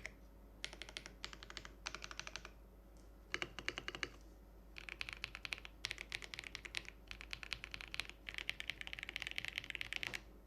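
Typing on a Keydous NJ68 Max mechanical keyboard with a brass plate and lubed Akko V3 Cream Yellow linear switches: quick runs of keystrokes in short bursts with brief pauses, ending in a longer fast run that stops shortly before the end.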